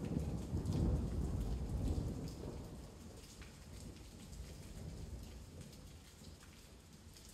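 A low roll of thunder that dies away over the first few seconds, followed by the faint steady patter of rain with scattered drips.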